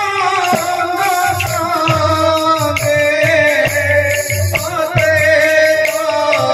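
Sambalpuri kirtan: a man singing a devotional melody through a microphone, with hand-held jingle rings shaken and struck in rhythm alongside.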